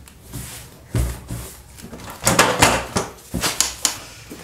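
Knocks, clatter and scraping of things being moved about and cleared on a desk, an irregular run of sharp hits that is loudest from about two to four seconds in.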